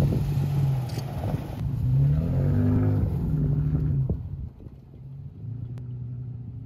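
Motor vehicle engine running and revving, its pitch rising about two seconds in. About four seconds in it drops away, leaving a quieter steady hum.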